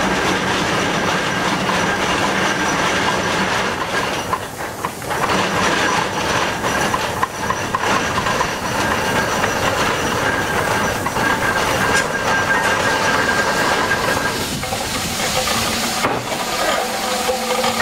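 Ruston Proctor steam excavator working: its steam engine and gearing run with hissing steam and a steady mechanical clatter as the dipper bucket is swung and lowered.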